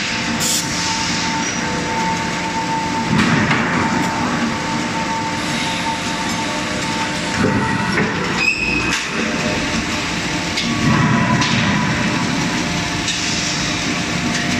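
Forging line machinery running: a steady drone of motors and hydraulics with a held whine, broken by a few short metallic knocks about three seconds in and again near eight seconds.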